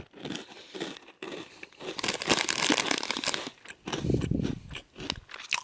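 Foil-lined plastic snack bag crinkling and crackling irregularly as it is handled and tilted open.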